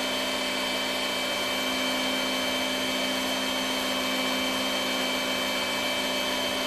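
Bosch electric meat grinder's motor running steadily with an even hum, forcing seasoned pork mince through a sausage-stuffing horn into the casing.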